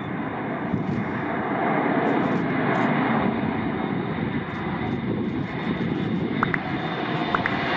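Airbus A400M on landing approach: its four TP400 turboprop engines and eight-bladed propellers drone steadily, getting a little louder over the first couple of seconds.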